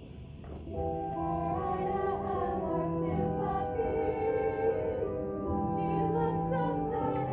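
Orchestral background music that swells about a second in into held, sustained chords, with operatic singing voices.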